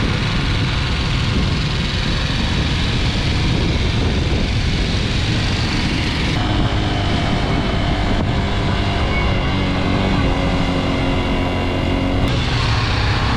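Motorcycles riding along a road: wind rushes over the microphone while the engines run underneath. The sound changes abruptly about six seconds in and again near the end, and in the middle stretch the engine note steps up and down in pitch.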